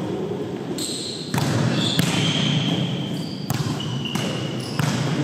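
Volleyball rally on a wooden gym floor: several sharp hits of the ball, the loudest about two seconds in, with short high squeaks of sneakers on the court, echoing in the gymnasium.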